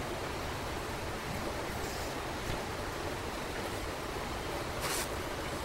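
Steady, even background hiss, with a brief faint scrape about five seconds in.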